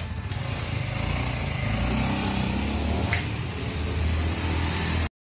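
Honda CBR150R motorcycle's single-cylinder engine pulling away and accelerating, growing louder and rising in pitch as it rides off. The sound cuts off suddenly near the end.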